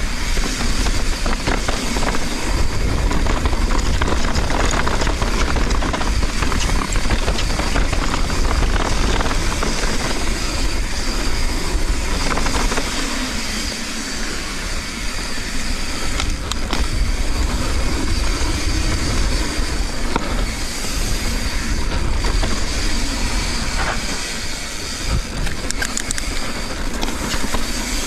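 Mountain bike riding down a dirt trail, heard from an on-board action camera: continuous wind buffeting on the microphone, with tyre noise and frequent rattles and knocks as the bike goes over bumps.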